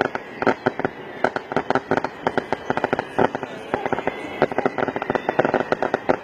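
A string of firecrackers going off in rapid, irregular cracks and bangs, some clustered close together.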